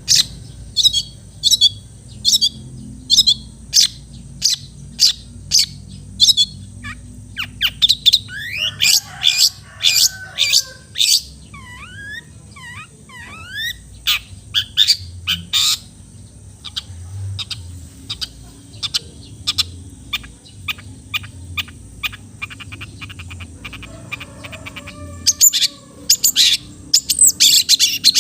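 Long-tailed shrike (cendet) singing: a series of sharp, high notes about two a second, a busier passage of mixed and sliding notes about a third of the way in, and a fast run of notes near the end.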